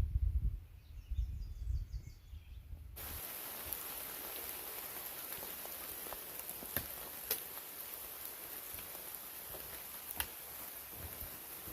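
Steady rain hiss with scattered drops ticking close by, starting abruptly about three seconds in. Before that, a low rumble on the phone's microphone.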